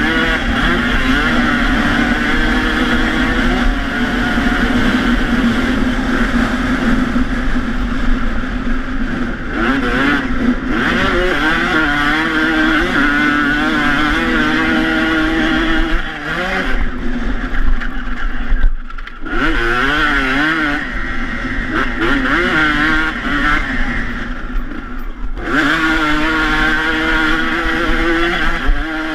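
Two-stroke dirt bike engine under hard riding, its pitch rising and falling as the throttle is opened and backed off through the gears, with the throttle chopped twice around the middle.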